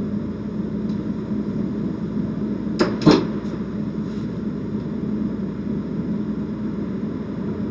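Two sharp clacks of casino chips being handled, about a third of a second apart and about three seconds in, over a steady low hum.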